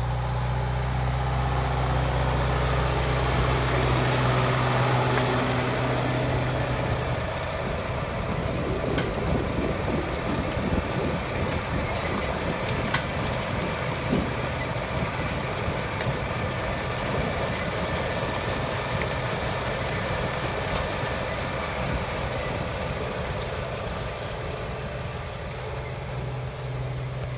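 Tractor engine running: a steady low hum for about the first seven seconds, then a rougher, noisier sound with a few sharp clicks.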